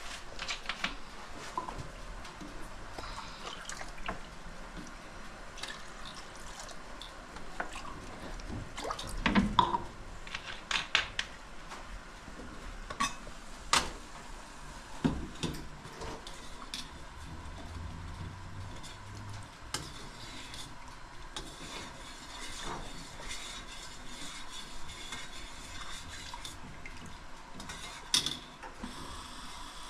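Metal kitchenware being handled: a small pan and a spoon clinking and knocking at irregular intervals, with liquid stirred in the pan. The loudest knocks come about nine seconds in and again near the end.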